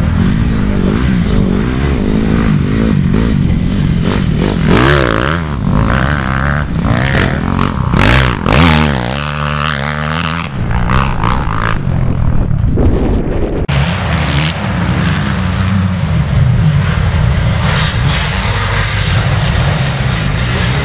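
Motocross bike engines revving on a dirt track, the pitch rising and falling over and over as the riders open and close the throttle.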